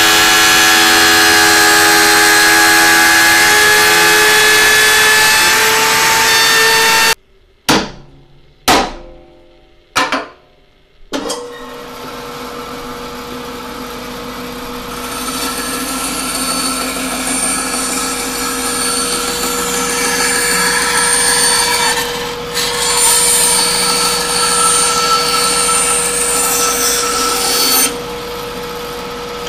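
Electric router on a router table running and cutting wood against a clamped template for about the first seven seconds. After it stops come a few sharp knocks. Then a bandsaw starts with a steady hum and cuts a curved wood piece, louder while cutting, and drops back near the end.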